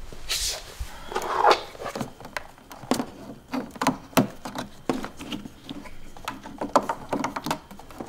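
Power cords and plugs being handled and plugged into a portable power station: an irregular run of light clicks, knocks and rustles.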